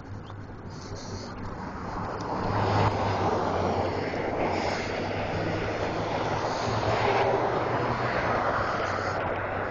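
Engine noise of a passing vehicle, swelling over the first few seconds and then holding steady over a low hum.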